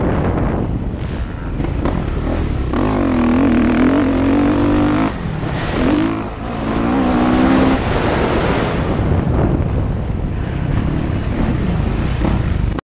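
Motocross bike engine revving up and down as the rider works the throttle around the track, its pitch rising and falling in waves and easing off briefly twice. Wind rushes over the on-board camera's microphone throughout.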